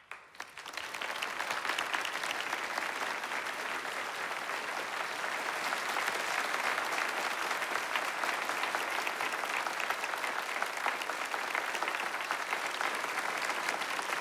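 A large audience applauding: a few single claps, then within about a second many hands join into steady, dense applause.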